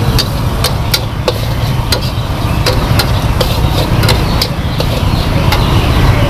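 Metal spatula clanking and scraping against a steel wok as noodles are stir-fried, sharp irregular clinks about twice a second over a steady low rumble from the wok burner.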